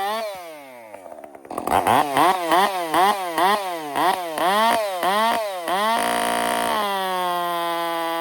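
Chainsaw with a new semi-chisel chain running at full throttle and cutting into wood. The engine bogs down as it loads, and its speed dips and recovers about twice a second through the cut. Near the end it runs free at high revs, then settles back to a steady run.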